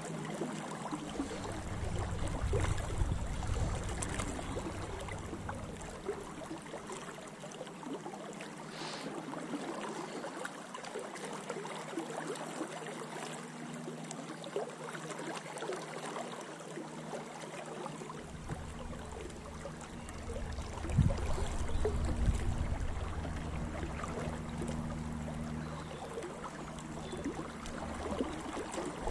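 Swollen river in spate flowing and gurgling around a wading angler, the current running high and fast after heavy rain. A low rumble comes in over the first few seconds and again from about two-thirds of the way through.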